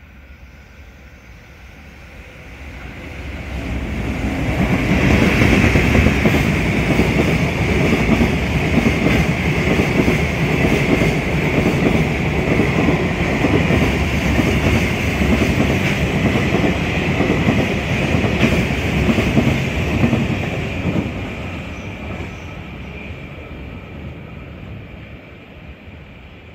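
Freight train hauled by an EH500 electric locomotive passing at high speed: it builds up over the first few seconds, then a long run of rhythmic clickety-clack as the container wagons' wheels cross the rail joints, with a steady high whine over it, fading away after the last wagon passes.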